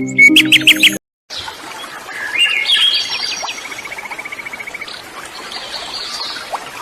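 Wild birds singing and chirping: quick sharp chirps, a brief cut, then several birds calling over a steady background hiss, one giving a fast trill of evenly repeated notes in the middle.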